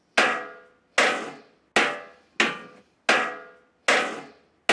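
Wooden mallet striking the chrome-plated brass grille of a 1930s Wolseley Hornet, six blows about three-quarters of a second apart, each ringing briefly. The grille is being knocked back over a wooden table leg to take out a dent.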